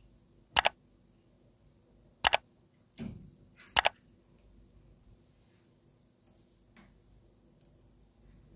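Computer-mouse click sound effects: three sharp double clicks about a second and a half apart, with a duller low thud just before the third.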